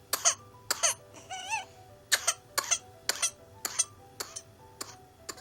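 Infant with whooping cough (pertussis) coughing in a rapid string of short, sharp coughs, about a dozen in a row, with a brief high wavering sound about a second and a half in. This is the severe, non-stop coughing fit of pertussis that leaves the child unable to breathe.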